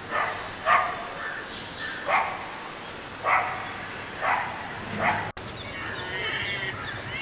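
A dog barking in six short, sharp barks spaced about a second apart. After an abrupt cut, a cat starts a long, wavering yowl near the end.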